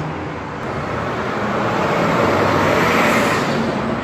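Trucks driving past close by on a city street, a box delivery truck and then a tow truck. Tyre and engine noise swells to its loudest about three seconds in and then eases.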